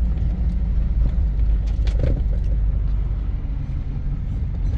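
A vehicle driving on a rough dirt road: a steady low rumble with a few short knocks and rattles from the bumps.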